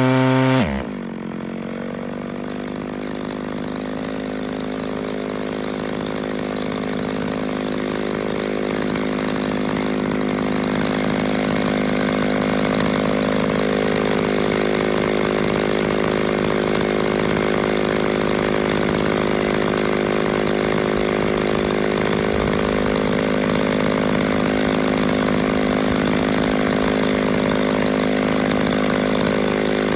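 McCulloch two-stroke chainsaw dropping from cutting revs to idle about a second in, then idling steadily with the bar resting in the log.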